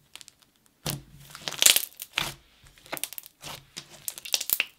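Thick glue slime packed with marshmallow foam beads and chocolate-chip pieces being pressed and folded by hand, giving an irregular run of sticky crackles and bubble pops as air pockets burst.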